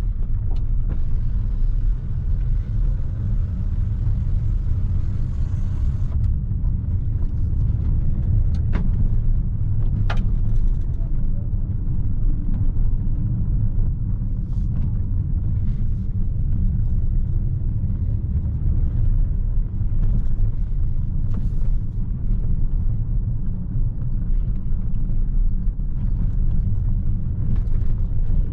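In-cabin noise of a Jetour X70 SUV driving slowly: a steady low rumble of the engine and tyres. Two faint clicks come about nine and ten seconds in.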